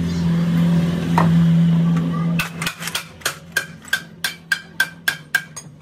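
A steady low hum that stops about two and a half seconds in, then a quick run of sharp metallic taps, about four a second, each with a short ring, like metal being struck lightly over and over.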